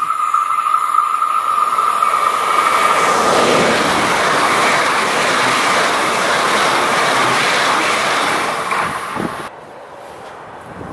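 Red regional electric multiple unit passing close by at speed: a steady high-pitched ringing tone as it approaches, then a loud rush of wheel and air noise as the carriages go by. The sound cuts off suddenly near the end.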